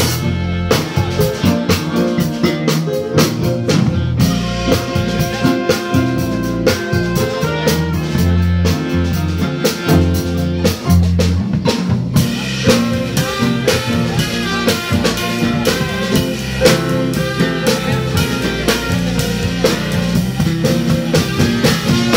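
Live jazz combo playing, led by a busy drum kit with snare and rimshot strokes, under saxophone lines, bass and piano.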